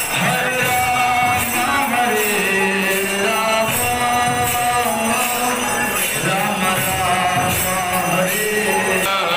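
Hindu devotional singing during temple aarti: voices holding long chanted notes over steadily beaten jingling metal percussion.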